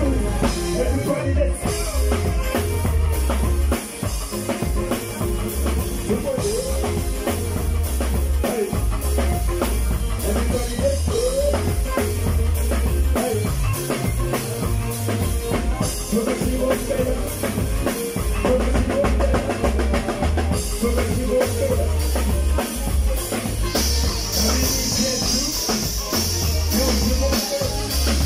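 Live band music dominated by a drum kit played hard on stage, with a heavy, driving kick drum and busy snare and cymbal hits over bass and other instruments, heard close to the drums.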